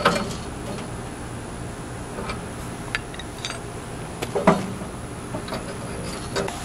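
Scattered light clicks and knocks of hands handling metal hose fittings at an air machine's manifold, the loudest knock about four and a half seconds in, over a steady low hum.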